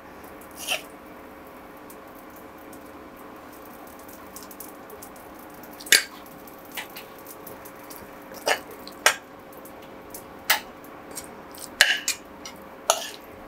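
Egg omelette cooking on low heat in a non-stick frying pan: a steady faint hiss with scattered sharp pops and crackles, about seven over the stretch.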